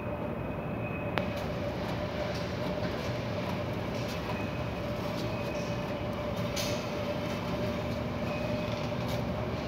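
Steady background hum of a supermarket, with a constant pitched tone running through it and a single sharp click about a second in.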